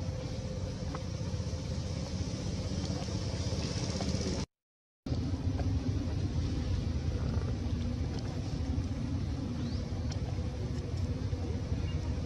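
Steady low rumbling background noise with no clear voice or call in it. It cuts to silence for about half a second about four and a half seconds in, then carries on unchanged.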